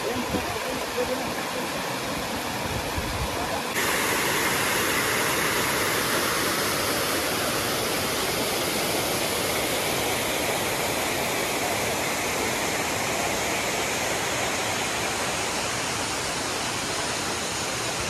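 Water rushing over rocks in a small river cascade, a steady rushing noise that steps up suddenly in level and brightness about four seconds in.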